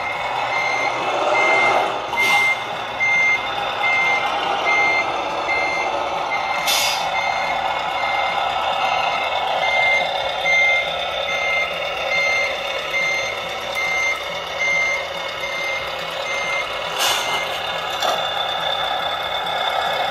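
A radio-controlled Scania R770 scale truck's sound module playing a reversing beeper, a steady run of evenly spaced high beeps, over its simulated truck engine running. A few short hisses break in about two, seven and seventeen seconds in.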